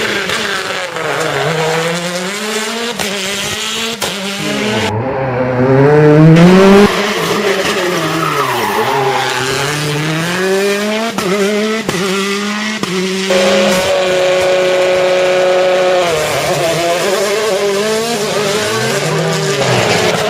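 Rally car engines revving hard and dropping back through gear changes and corners, the pitch climbing and falling again and again. The sound jumps abruptly a few times, as from one car to the next.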